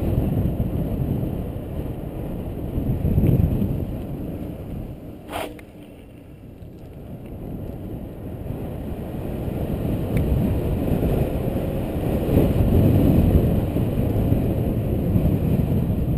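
Wind buffeting an action camera's microphone while riding along a road: a rumbling rush that dies down about six seconds in and then builds again. A single short click about five seconds in.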